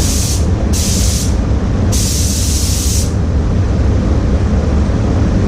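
Automotive paint spray gun hissing in three short bursts, the last and longest about two seconds in, over a steady low rumble.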